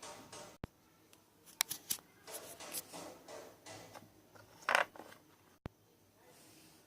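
Slime being squeezed and worked by hand, giving short irregular wet crackles and clicks, the loudest about three-quarters of the way through. Two sharp clicks come near the start and near the end.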